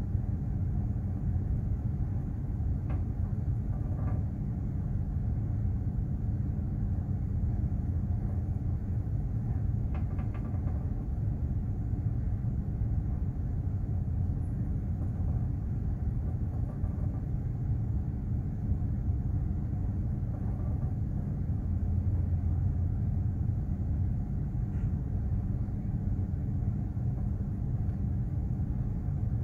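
Steady low rumble and drone of a container ship under way, its engine and hull running at an even pitch.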